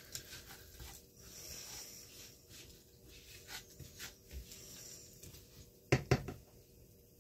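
Faint, irregular scraping and clicking of a spoon mixing panko breadcrumbs into melted butter in a bowl, with a sharper knock about six seconds in.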